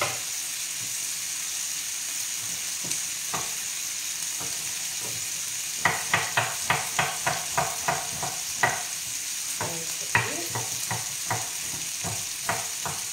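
Diced speck frying in a pan with a steady sizzle. From about six seconds in, a kitchen knife chops onion on a wooden cutting board in two runs of quick, sharp strokes, about three a second.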